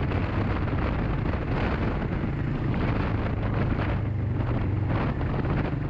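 Adventure motorcycle engine running at a steady speed while riding, with wind rushing over the camera microphone.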